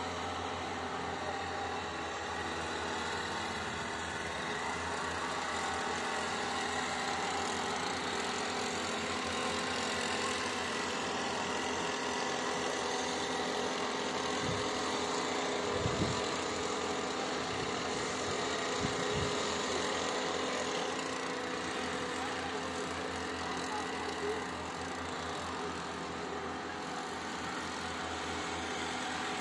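Steady engine hum with a few faint low thumps a little past the middle.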